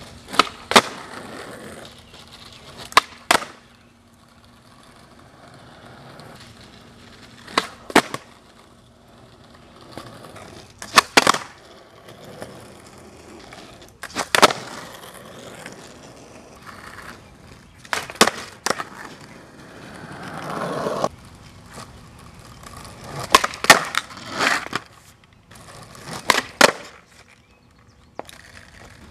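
Skateboard wheels rolling on asphalt, broken by sharp wooden clacks of the tail popping and the board landing during flatground tricks such as kickflips and fakie bigspins. The clacks come in about eight clusters, often as a quick pop-then-land pair.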